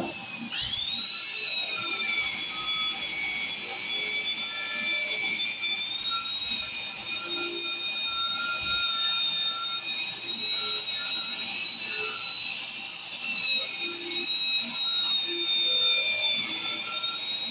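Angle grinder winding down and then, about half a second in, spun back up to full speed. It then runs with a steady high whine as it works rust off a steel pipe.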